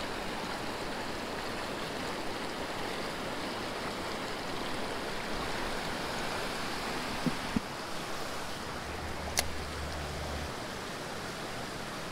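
Creek water running steadily over a shallow riffle, an even rushing noise, with a few small clicks a little past the middle.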